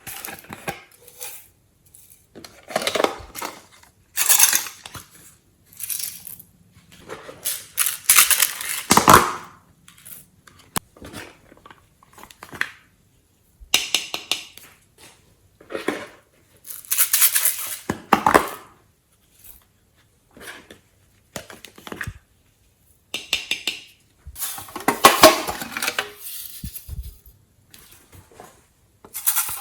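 Glossy homemade slime being worked by hand with add-ins mixed through it: irregular bursts of sticky crackling and clinking, every two to three seconds, with short quiet gaps between.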